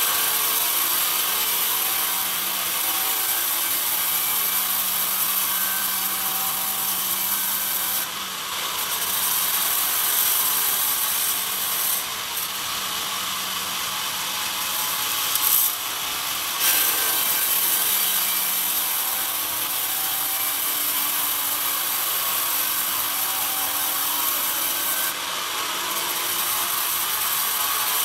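Band sawmill blade cutting lengthwise through a pine log, a loud steady hissing rasp. The cutting hiss drops away briefly four times, with a couple of short louder knocks around the middle.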